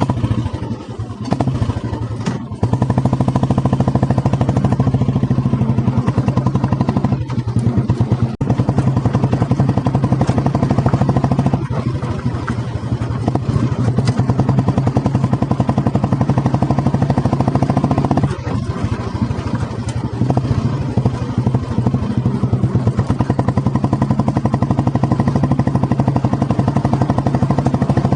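Single-cylinder exhaust of a 1985 Royal Enfield Bullet 350 with a loud exhaust, thumping at steady revs while ridden. The note eases off briefly near the start and again about a quarter and two-thirds of the way through.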